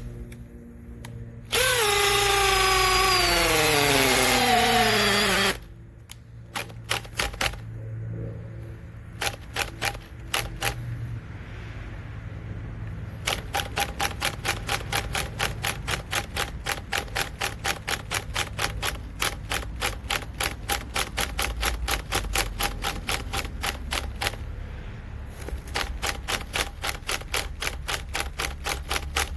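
Makita XPH07 brushless hammer drill, on speed setting 2 with a 5/8 bit, runs loudly for about four seconds, its whine falling in pitch as it slows under load, then stops. After that comes a long, steady run of sharp clicks, about three a second.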